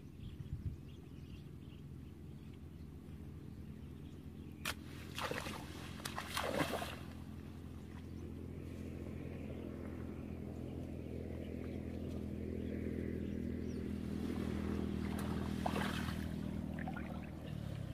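A steady engine hum in the distance, slowly growing louder and stopping shortly before the end. Over it, water splashes as a person wades and reaches into a shallow muddy stream, a few sharp splashes about five to seven seconds in and again near the end.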